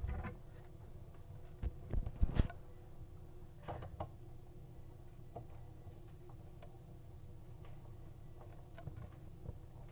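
Light knocks and clicks of small faucet parts being handled and fitted: a quick cluster about two seconds in and a few softer ones near four seconds, then only faint room noise.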